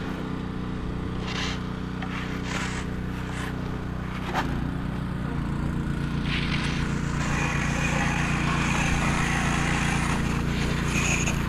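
A vehicle engine running steadily, its note shifting slightly about four seconds in. A few short hisses come in the first few seconds.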